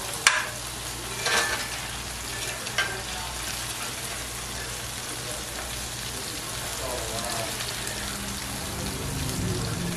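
Diced potatoes frying in a cast-iron skillet, a steady sizzle, with a few sharp taps of a metal spatula against the pan in the first three seconds.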